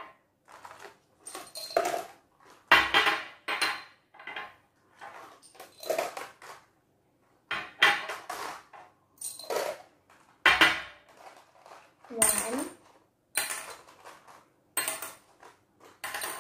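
Small balls dropped into and moved between small glass jars on a tabletop: a long run of sharp glass clinks and knocks, well over a dozen, each with a short high ring.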